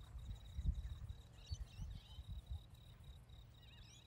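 A steady, fast-pulsing insect trill runs throughout, with a few short bird chirps about halfway through and near the end. Under it are irregular low, dull thuds and rumble.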